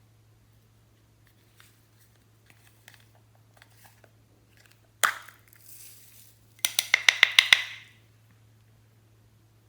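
Faint crackling, then a sudden loud crunch about halfway through that fades over a second, followed by a quick run of about nine sharp crunching clicks in one second.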